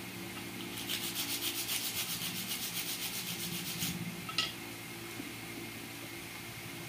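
Rapid back-and-forth rubbing strokes by hand on a small part, about eight a second for some three seconds starting about a second in, then a single sharp click. A steady low hum runs underneath.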